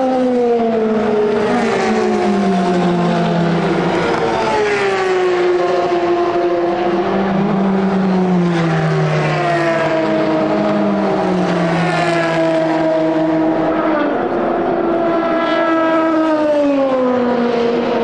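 Endurance race cars' engines at high revs, several running at once. Their pitch slides down again and again, with some step changes, as cars pass or lift and shift down.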